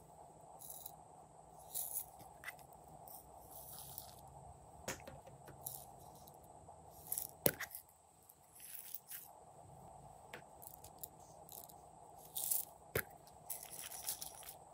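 Faint handling sounds: scattered sharp clicks of small plastic glue bottles and caps, and short hissing sprinkles of sequins and glitter poured into a glass bowl, over a low steady background hum.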